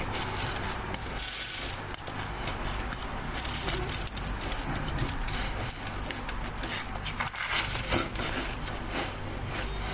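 Close-miked eating: a person chewing and crunching a mouthful of food in a dense run of crackles, with a wooden spoon scraping the food.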